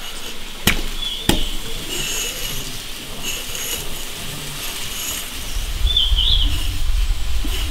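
A kitchen knife cuts scoring slashes into a large whole fish on a cutting board, with two sharp knocks of the blade on the board about a second in. Short high chirps come and go, and a low rumble rises near the end.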